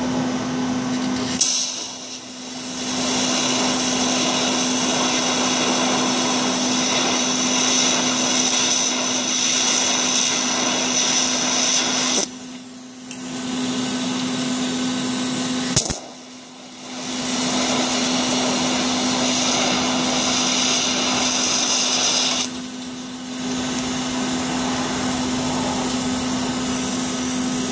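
TIG welding arc hissing steadily over a constant welder hum, with filler rod being fed into the joint of an AN -6 fitting on a fuel rail. The arc breaks off briefly four times, with a sharp click at one restart about halfway through.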